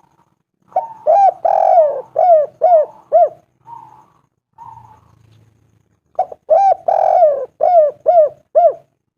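Spotted dove (tekukur) cooing in two clear phrases, each about six notes with one longer, drawn-out note third in line. The phrases are about three seconds apart.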